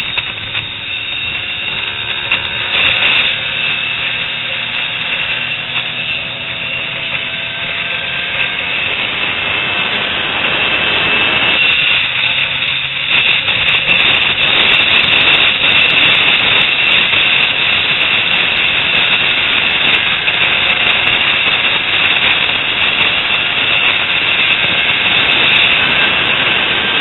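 Yamaha motorcycle engine running while the bike is ridden, its pitch rising and falling through about the first ten seconds. From about halfway on, the engine is mostly buried under a steady rush of wind noise on the microphone.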